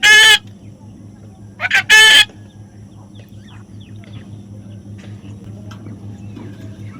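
Parrot giving two loud, short calls, one at the start and another about two seconds in, then faint chirps and clicks over a steady low hum.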